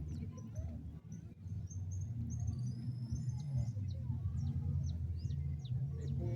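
Wild birds chirping with short high calls, and a few longer whistled calls around the middle, over a steady low rumble.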